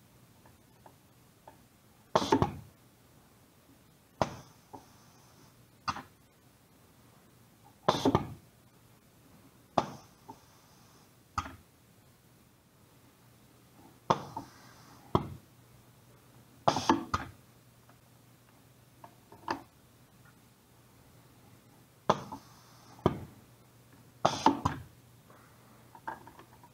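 Pneumatic valves on a training rig clacking as they are worked by hand, with short hisses of compressed air exhausting and the single-acting cylinder knocking at the ends of its stroke. The clacks come every two to three seconds, some followed by about a second of hiss.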